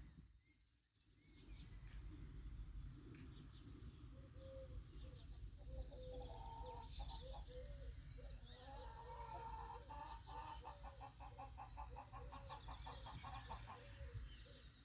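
Chickens clucking and calling in a quiet, wavering stream, with a quick run of clucks past the middle. Small birds chirp faintly higher up, over a low steady rumble.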